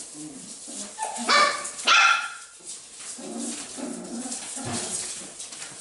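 Six-week-old Pumi puppies barking and growling while they tug a plush toy: two sharp, high-pitched barks about a second and two seconds in, then quieter low growls, over the scuffle of paws and paper.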